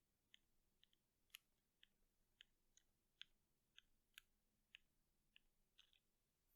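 Faint, slow keystrokes on an ATXKB Moontower V2 custom mechanical keyboard with lubed Gateron Ink V2 switches in a POM plate, o-ring mounted. Single key presses, about two a second, each a short click.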